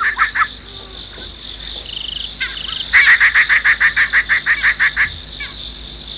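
Night-time chorus of frogs and insects. A steady high insect trill runs under bouts of rapid pulsed frog calls, about eight pulses a second. One bout stops half a second in, and another lasts about two seconds from three seconds in, with a few short chirps just before it.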